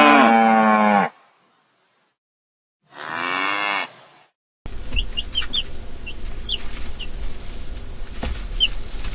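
Cow mooing twice: a long low moo at the start and a shorter one about three seconds in. From about five seconds a different recording follows, with small birds chirping over a low rumble.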